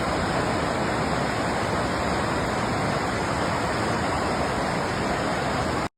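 Veliki slap, the biggest waterfall in Croatia, falling into its pool: a steady, dense rush of water that cuts off suddenly near the end.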